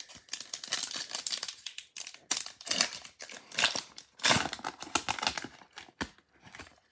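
Wrapper of a baseball card pack being torn open and crinkled by hand: irregular crackling crinkles, loudest about two and four seconds in.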